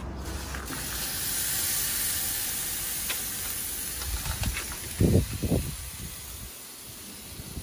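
An oiled half tuna sizzling on a hot gas-grill grate: a steady hiss that starts just after the fish goes down and slowly fades. About five seconds in come two short low thumps, louder than the sizzle.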